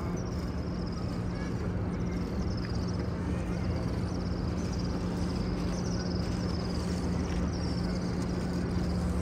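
Steady ambience of a large congregation praying in silence: a low crowd murmur and rustle over a constant low hum, with faint high twittering.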